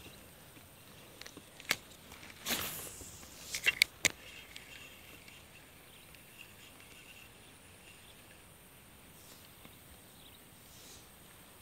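A few sharp knocks and short rustles of handling close to the microphone in the first four seconds, then a faint steady outdoor background with a thin high chirping for a couple of seconds.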